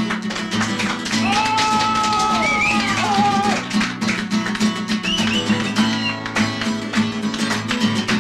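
Music: fast strummed acoustic guitar in flamenco style over a steady bass, with a held melody line that bends in pitch from about a second in and again around five seconds in.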